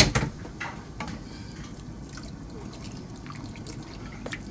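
A brief clatter right at the start, then a wooden spoon stirring callaloo into coconut milk in a steel pot, with soft liquid sounds and faint clicks.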